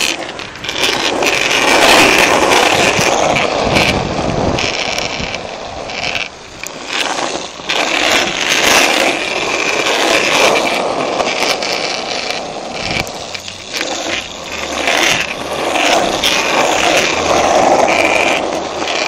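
Skateboard wheels rolling over rough asphalt: a loud, continuous gritty rumble with frequent short knocks, easing briefly a few times.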